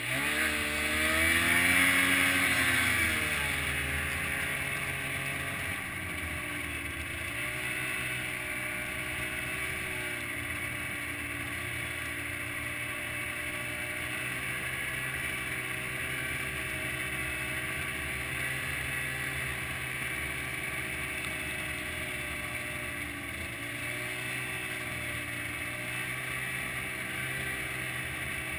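Snowmobile engine revving up as it pulls away, loudest in the first few seconds. It then runs steadily at trail speed with small rises and falls in pitch.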